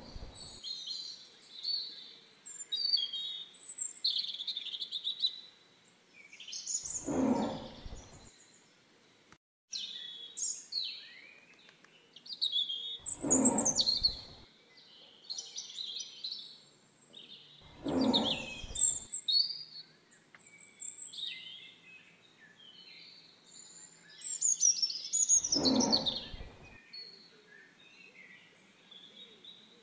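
A tiger calls five times, each call about a second long with the calls some five to seven seconds apart, over continuous birdsong of high chirps and trills.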